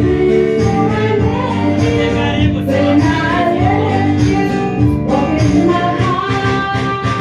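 A song playing, with singing over instruments, at a steady, fairly loud level.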